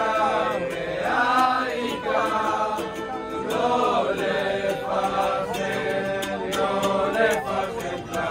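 A group of men singing a song together in unison, with a ukulele strummed along.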